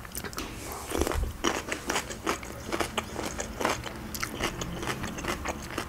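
Close-miked chewing of crunchy food, with many sharp, irregular crunches as she bites and chews.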